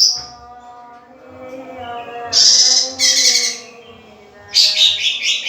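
Young male green leafbird (cucak ijo) singing: a burst of rapid, high chattering notes about two seconds in, and another starting near the end.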